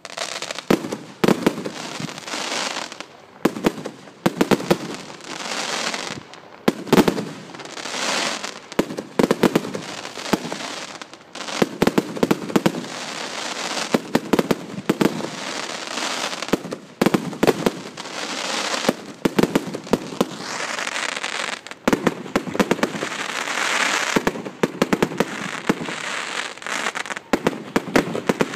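Aerial fireworks bursting in quick succession: a dense, unbroken run of bangs mixed with crackling.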